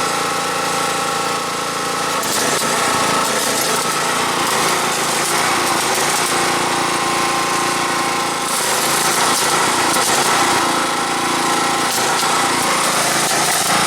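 Welding arc crackling and hissing over a steady engine drone, the hiss swelling about two seconds in and again about eight seconds in.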